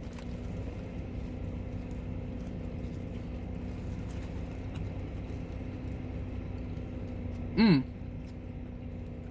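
Steady low hum of a car's idling engine heard inside the cabin. About three-quarters of the way through, a man gives one short hummed "mm" as he eats.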